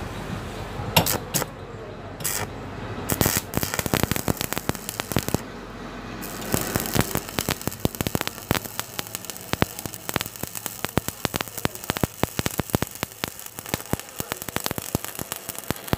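Stick welding arc on thin steel square tube, likely with a 6013 electrode, crackling and sputtering. A few sharp cracks come as the arc strikes about a second in, then short sputtering bursts, and from about six seconds on a steady dense crackle as the bead is run.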